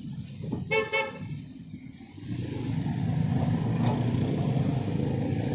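A vehicle horn toots twice in quick succession about a second in, over street noise. About two seconds in, a steady low rush of noise swells up and holds.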